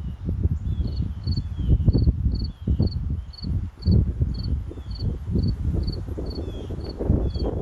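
A cricket chirping steadily, about two high chirps a second, starting about a second in. Loud, uneven low rumbling runs underneath, and a bird gives short falling calls during the first few seconds.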